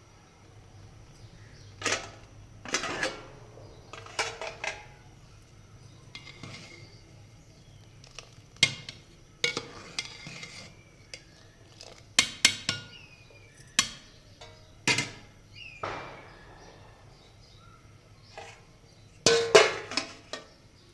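Kitchen utensils and dishes clinking and knocking during cooking: irregular sharp clinks a second or two apart, with the loudest cluster near the end.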